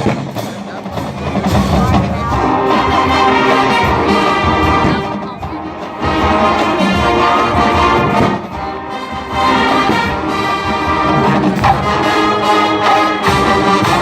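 College marching band playing, led by the brass: trumpets and trombones sounding loud, full held chords that shift every second or two, with short dips in volume between phrases.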